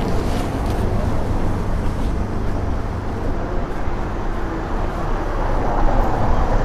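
Street ambience: a steady wash of traffic noise from cars on the road, with a constant low rumble.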